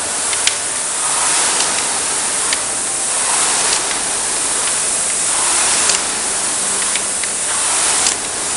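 Concept2 indoor rowing machine's air-resistance flywheel whooshing, swelling and easing with each stroke about every two seconds, with a few light clicks.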